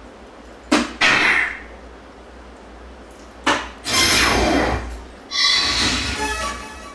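Soft-tip darts striking a VS Phoenix electronic dartboard twice, each sharp tap followed by the machine's loud hit sound effect. Near the end the machine plays an electronic effect of several steady tones.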